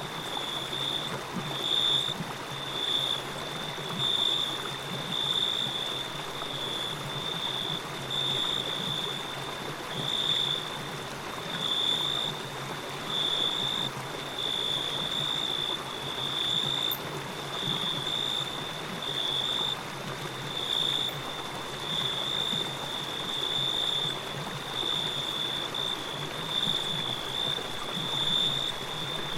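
Forest ambience: a steady rush of running water under a loud, high, even-pitched insect chirping that pulses about once a second.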